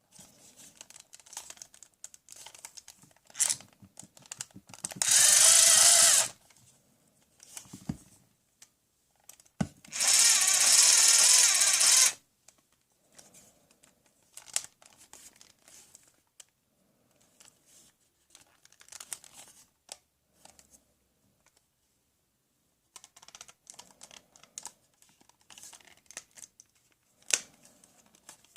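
A battery-powered toy power tool whirring twice, a short run and then a longer one of about two seconds, with plastic parts clicking and rattling as it is handled in between.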